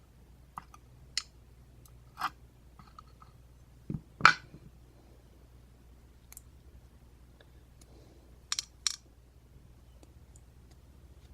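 Sparse sharp clicks and light metallic taps of small lock parts being handled: master wafers and pin tumblers coming out of a gutted American 1105 padlock. About eight clicks, the loudest a knock about four seconds in, with a close pair near the end.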